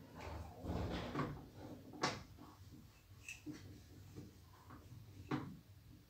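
Washed laundry being pulled out of the drum of a front-loading washing machine: fabric rustling and handling noise, with two sharp knocks, one about two seconds in and one near the end.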